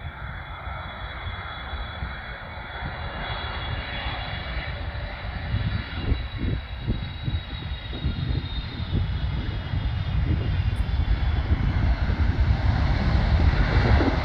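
Boeing 777 freighter's GE90 turbofan engines whining steadily as the jet lands and rolls out along the runway, the engine noise growing louder over the last few seconds.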